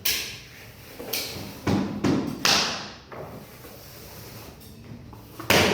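Irregular thuds and knocks, about five in all, from rigid SPC floor planks being handled and laid.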